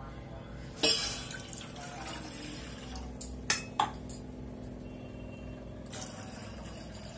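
Water poured from a glass into a stainless steel pot, splashing against the metal. Sharp clinks about a second in and twice in quick succession around three and a half seconds in, and a louder splash of pouring near the end.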